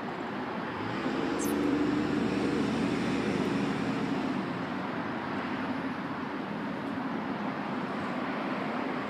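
Road traffic: a motor vehicle passing, louder from about one to four seconds in, over a steady background traffic hum.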